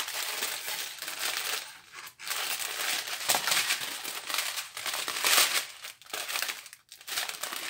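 Clear plastic drill packets, a joined strip of small resealable bags of diamond-painting drills, crinkling as they are handled and spread out. There are short breaks about two seconds in and near the end.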